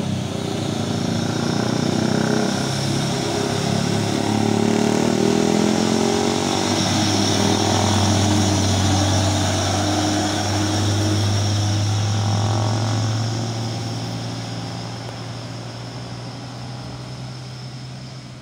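Heavy diesel truck engine labouring at low revs as the truck climbs a steep bend. It grows louder as the truck passes close, about halfway through, then fades away, with a steady high whine above it.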